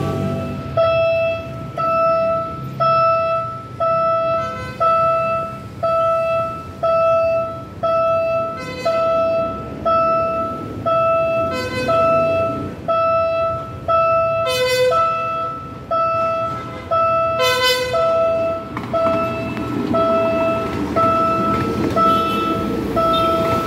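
Level-crossing warning alarm beeping steadily at about one beep a second as a Philippine National Railways commuter train approaches. The train's horn gives several short blasts through the middle, and the rumble of the train passing over the crossing builds near the end.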